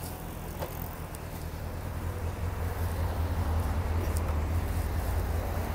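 City street noise: a steady low rumble of traffic and wind on the microphone, growing a little louder after the first couple of seconds.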